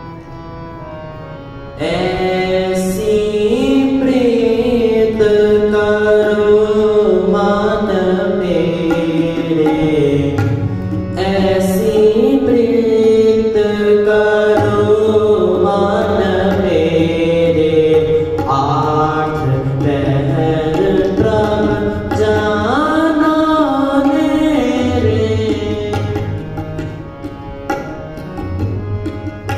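Sikh kirtan: harmonium playing sustained chords under a voice singing a long, gliding melodic line, with tabla strokes. The full ensemble comes in loudly about two seconds in.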